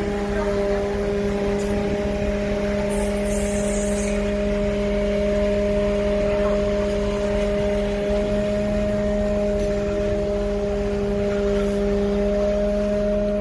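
Magirus turntable ladder fire truck running with a steady humming drone while its ladder basket is moved.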